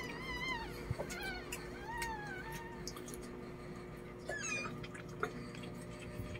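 Newborn puppy crying in thin, high, wavering mews, several in a row over the first three seconds, then a shorter falling one at about four and a half seconds. A few soft knocks from the puppy being handled.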